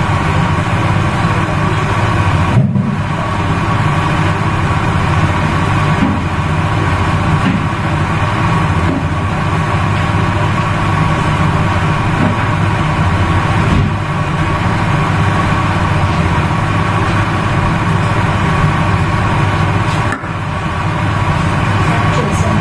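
A loud, steady mechanical hum with a low drone, like a motor running continuously, dipping briefly about three seconds in, near fourteen seconds and about twenty seconds in.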